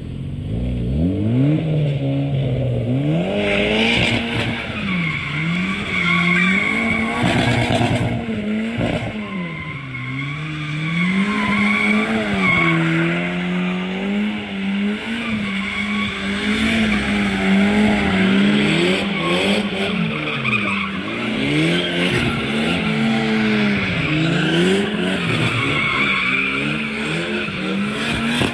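Drift car engines revving hard, their pitch rising and falling again and again as the cars slide, with tyres squealing on the tarmac.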